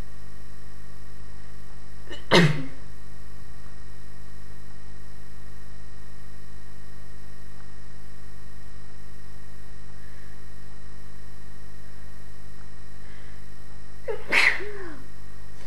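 A person sneezing twice, about twelve seconds apart, the second sneeze ending in a short falling voiced 'ah'. A steady electrical hum runs underneath.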